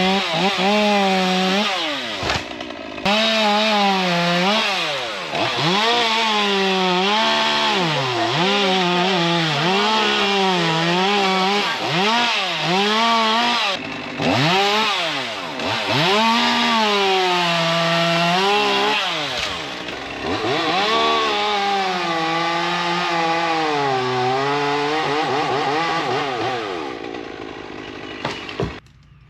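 Chainsaw cutting wood, its engine pitch dropping under load and climbing back again and again as the throttle is worked. It pauses briefly twice and stops abruptly near the end.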